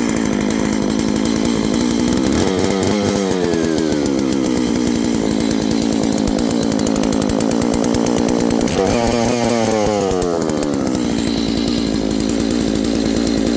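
Stihl 660-clone two-stroke chainsaw with a Nikasil cylinder running at high revs, loud. Its pitch surges up sharply twice, about two and nine seconds in, then sinks back to a steady howl.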